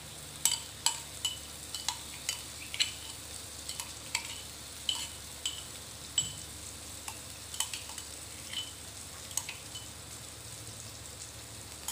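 Low sizzle of shallots, garlic and onion frying in oil in a wok, as ground spice paste is added. Sharp utensil clinks come irregularly over it, about one or two a second.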